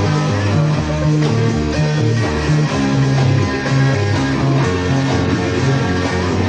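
Rock music: an instrumental passage with guitar and bass guitar playing over a steady beat.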